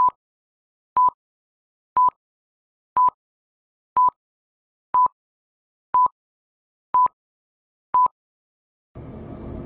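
Film-leader countdown beeps: a short, steady 1 kHz beep once a second, nine times, one for each number of the countdown. Near the end a faint hissy wash begins.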